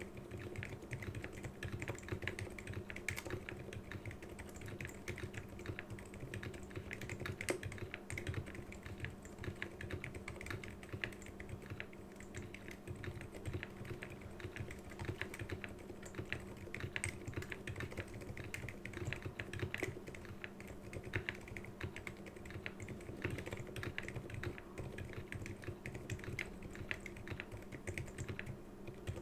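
Continuous typing on a Keychron K6 mechanical keyboard with lubed Alpaca silent linear switches and stock keycaps: a steady stream of keystrokes. A PC case fan hums steadily behind it.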